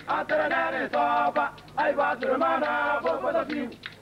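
A group of men chanting a song together in short phrases, with brief pauses between the phrases.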